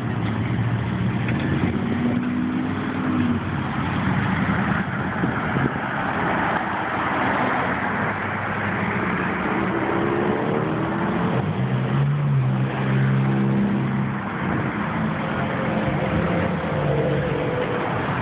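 Street traffic: cars and pickups passing close by one after another, their engines accelerating over a steady road hum, with an engine note rising about ten seconds in.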